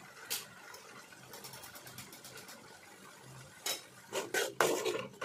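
A metal spoon clinking against an aluminium kadai while spices go onto frying tomato puree: one sharp tap near the start, a run of faint ticks in the middle, then louder clinks and scrapes near the end as stirring begins.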